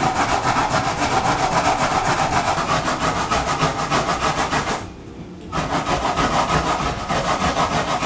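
Carrots being grated on a plastic grater: fast, even rasping strokes, broken by a short pause about five seconds in.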